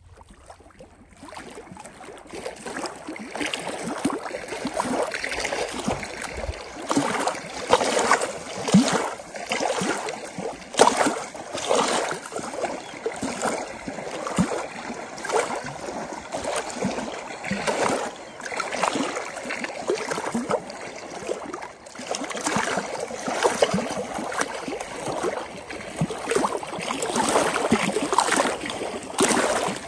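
Small waves lapping and splashing irregularly close by, coming in about a second in.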